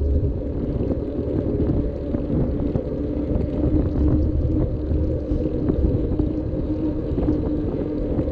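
Wind rumbling on a helmet- or bike-mounted action camera's microphone, with tyre noise, while riding a road bike on a wet street. A steady low hum grows clearer about halfway through, with faint scattered ticks.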